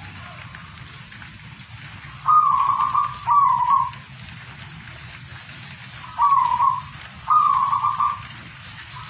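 Caged zebra dove (perkutut) singing two phrases of its rolling, trilled coo, each phrase two short notes, the first a couple of seconds in and the second about six seconds in, over a steady background hiss.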